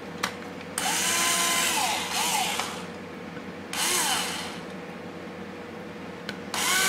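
Small electric drill with a 1/16-inch bit drilling holes in a thin wooden frame plate, run in three short bursts, its motor pitch rising as it spins up and falling as it stops each time. A short click comes just before the first burst.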